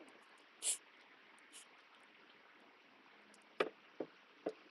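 Work handling noises: a brief rustling hiss just under a second in, then three sharp knocks in quick succession near the end.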